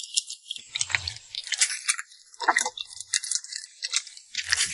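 Clear 'fake water' slime being squeezed and pressed by hand, giving a run of wet crackling, popping clicks with a few soft squelching thuds.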